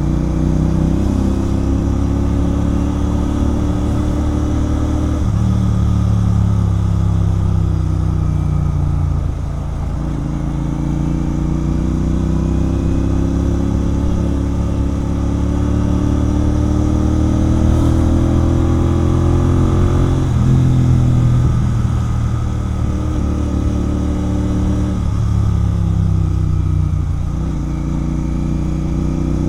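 Royal Enfield Continental GT 650's parallel-twin engine through a Red Rooster aftermarket exhaust, riding under way. The revs climb in long pulls, and the pitch drops suddenly at several gear changes or throttle lifts before rising again.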